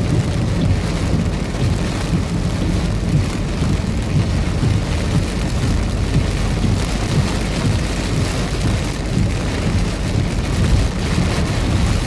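Heavy rain in a severe thunderstorm: a steady, loud downpour with a deep rumble underneath.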